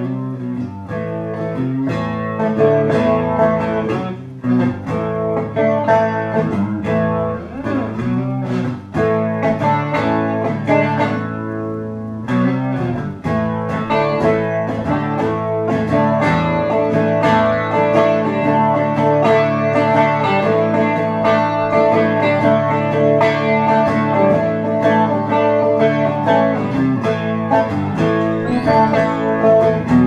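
Electric guitar played through a Leslie 147 rotating-speaker cabinet, a continuous run of picked notes and chords through the cabinet's tube amplifier.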